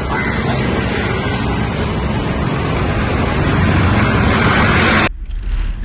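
Loud, steady road-vehicle noise that swells toward the end and is cut off abruptly about five seconds in.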